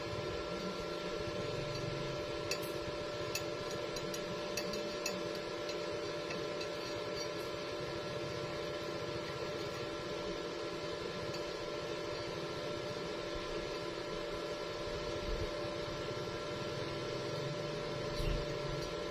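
Steady electrical hum made of several fixed tones over a low hiss, with a few faint ticks about two to five seconds in.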